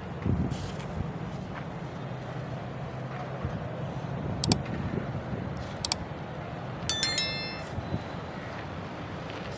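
Steady low outdoor rumble, like distant traffic, broken by two sharp clicks about halfway through and a bright, ringing chime about two-thirds of the way in.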